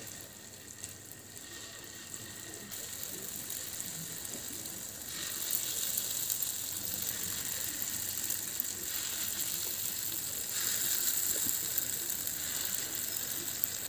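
Hot oil sizzling in a frying pan as dollops of semolina-and-milk batter fry into small fritters. The sizzle grows louder in steps as more batter goes in, clearly about five seconds in and again near eleven seconds.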